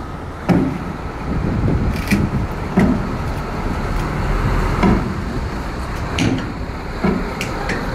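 Irregular knocks and clacks, about seven of them, as workers handle the wooden crates and frames holding new motorcycles inside a steel shipping container, over a steady low rumble.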